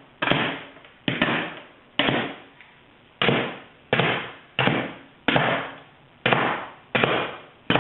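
Cartridges snapping one by one into an upside-down AR-15 magazine as it is pressed down onto rounds laid out on a surface. Each press gives a sharp clack that fades quickly, about nine times at a steady pace a little under a second apart.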